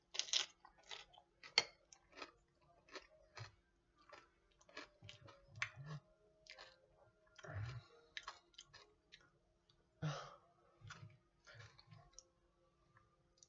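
A person chewing a mouthful of tortilla chip and bean-avocado dip close to the microphone, with soft, irregular crunches and mouth clicks.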